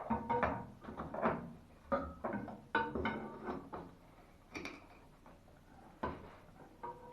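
Repeated metallic clanks and knocks with a brief ring, from tools and metal fittings being handled during pipe work. The knocks come thick for the first few seconds, then a few sparser ones follow.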